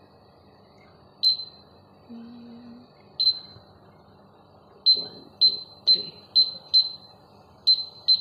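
Steam oven's touch control panel beeping as its keys are pressed to set the cooking time: about nine short, high-pitched beeps, the first few spaced out, then a quick run about half a second apart.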